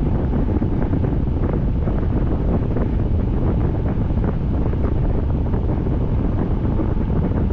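Steady heavy rain: a dense, even rush with faint patter of drops through it.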